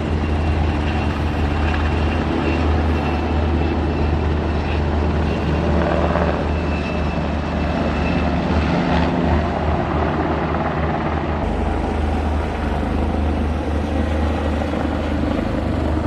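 Firefighting water-bucket helicopter's rotor and engine running close by, with a steady, continuous low rotor sound at a constant level.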